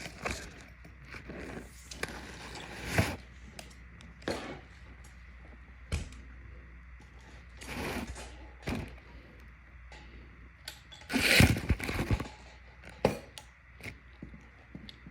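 Irregular clicks, knocks and scrapes of objects being handled, loudest in a cluster of clattering and scraping about eleven seconds in.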